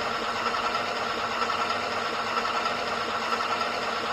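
A Panther G RC tank's TK22 sound board plays its simulated engine idle through a speaker, with a steady high hum running under it. The hum is still there with a different speaker, which the owner takes as a fault in the board.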